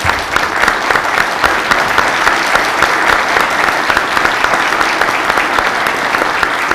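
Audience applauding in a hall: many people clapping steadily and evenly throughout.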